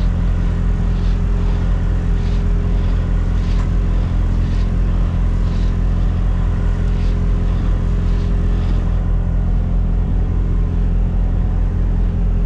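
Scania truck's inline diesel engine idling with a steady, deep rumble. Faint soft scuffs come and go over the first nine seconds or so.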